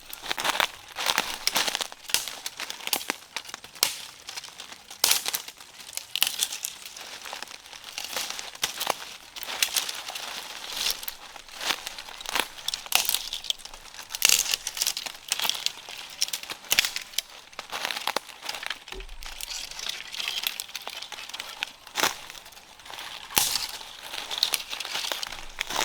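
Irregular crinkling and crackling, a dense run of sharp snaps, as of something being crumpled or handled.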